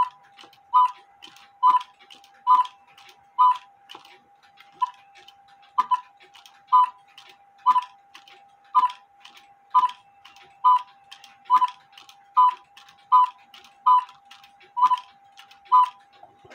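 Cuckoo clock movement ticking evenly, a little under one tick a second, with a steady faint hum underneath.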